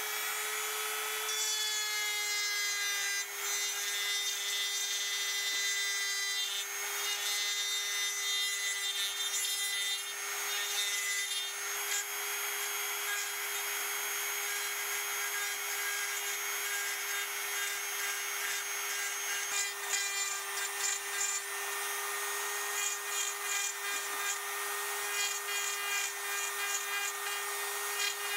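Handheld rotary tool with a small carving bit running at a steady high speed and grinding into a wooden lure blank: a constant motor whine with a rasping cut over it.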